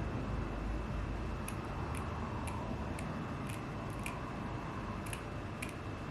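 Scissors snipping through the lace of a lace frontal wig: about eight short snips, roughly half a second apart, starting about a second and a half in, over a steady background hum.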